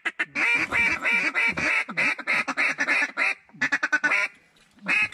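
Mallard duck calls blown by hunters: a string of loud quacks, about three a second, then a quicker run of short clucks about three and a half seconds in, and one more quack near the end.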